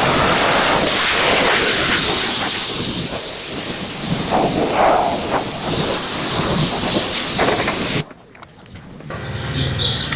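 Pressure washer spraying a steady jet of water against the truck's body, a loud hiss that cuts off suddenly about eight seconds in. A quieter low hum follows near the end.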